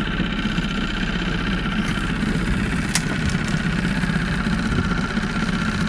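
Small boat's outboard motor idling steadily, with one sharp click about three seconds in.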